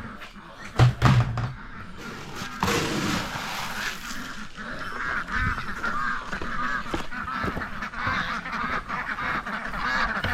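A couple of loud knocks about a second in, then a flock of poultry calling continuously with many short, repeated honking and quacking calls.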